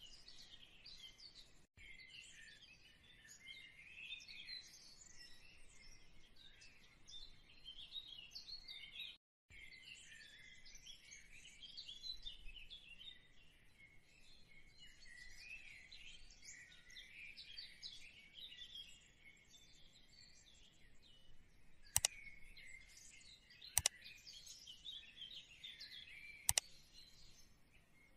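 Many small birds chirping continuously, faint, with three sharp clicks near the end.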